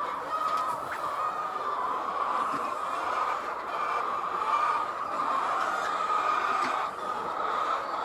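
A flock of white layer hens clucking and chattering together in a continuous chorus.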